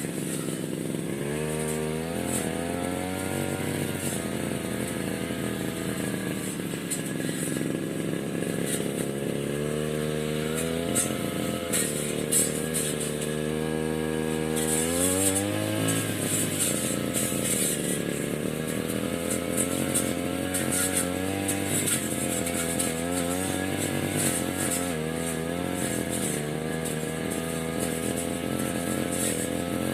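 Small engine of a grass-cutting machine running under test, revved up and down several times so that its pitch climbs and falls.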